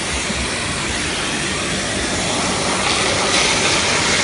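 Nilfisk T30 industrial wet/dry vacuum cleaner running with a steady rushing noise of motor and suction air. The hiss grows a little louder and brighter about three seconds in.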